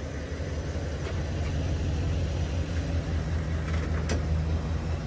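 Chevrolet Silverado 2500 HD pickup's engine idling with a steady low rumble, a little louder after about two seconds. A single sharp click about four seconds in.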